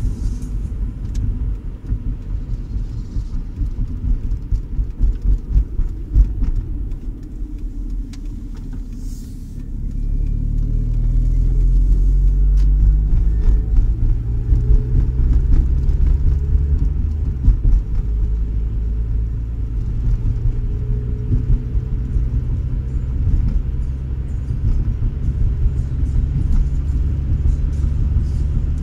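Volvo V40 driving, heard from inside the cabin: a low engine and road rumble. About ten seconds in, the engine note rises and grows louder as the car accelerates, then climbs and settles again further on.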